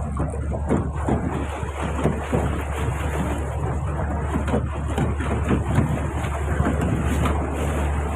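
A tour boat under way: a steady low engine hum under the rush and splash of lake water, with wind on the microphone.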